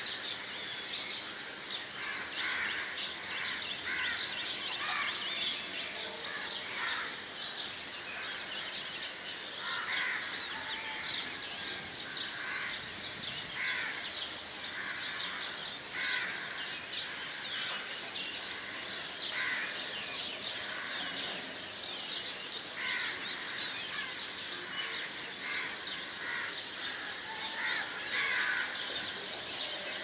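Many small birds chirping continuously, with crows cawing over and over every second or two.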